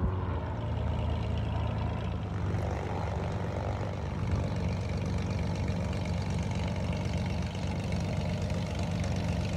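Piston engine of a light propeller airplane running steadily, a low even drone.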